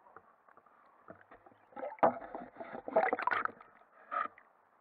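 Irregular knocks, clicks and water sloshing picked up underwater by a camera mounted on a landing net as the net is moved through the water. The sound comes in clusters about two and three seconds in, with a shorter one near the end.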